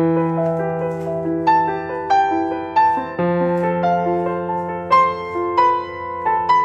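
Background piano music: a slow melody of single notes, about two a second, over a held low note.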